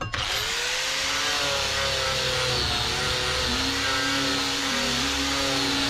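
Electric angle grinder switched on, its motor whine rising as it spins up, then grinding the steel of a knife blank cut from a saw blade with an abrasive disc, throwing sparks. The pitch dips a little a few times as the disc is pressed onto the blade.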